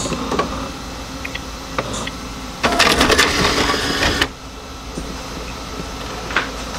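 HP 477 high-speed inkjet printer running a test print, feeding a sheet through with a steady mechanical hum. About two and a half seconds in there is a louder stretch of rapid clicking and rattling that lasts under two seconds.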